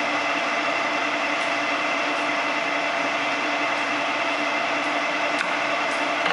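Harrison M300 metal lathe running in reverse with the power feed engaged: a steady hum and gear whine from the headstock and feed gearing, with a couple of faint ticks near the end.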